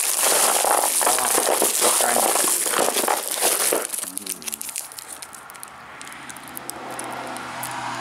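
Hand rummaging through a box of plastic-wrapped sweets, the wrappers crinkling and rustling loudly for about four seconds, then softer crinkling as one wrapped candy bar is picked out.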